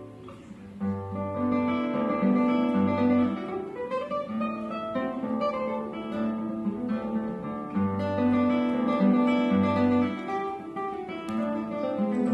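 Solo classical guitar being played: a plucked melody over recurring low bass notes, with a brief lull at the start before the playing picks up about a second in.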